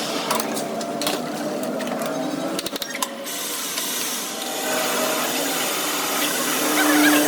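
A metalworking machine running on the axle, with a steady mechanical whirr and scraping and a scatter of clicks in the first few seconds.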